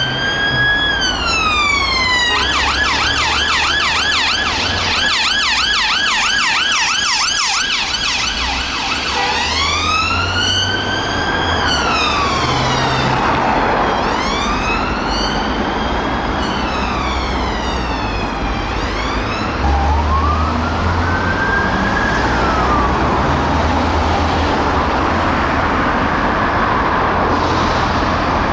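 UK police vehicle sirens passing on an emergency response, over road traffic and engine noise. A police Ford Transit van's siren switches from a slow wail to a fast yelp about two seconds in, then back to the wail about nine seconds in. A second vehicle's wail starts about two-thirds of the way through.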